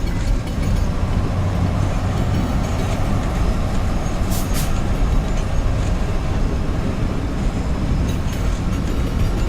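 A passing train, its steady low rumble running throughout, with two brief sharp high-pitched sounds about halfway through.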